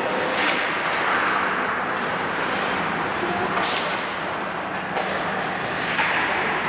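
Ice hockey skates carving and scraping the ice, three short hissing swishes over steady rink noise.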